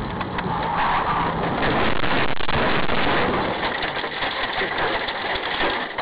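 Steady vehicle and road noise with many small clicks and crackles, swelling a little around the middle.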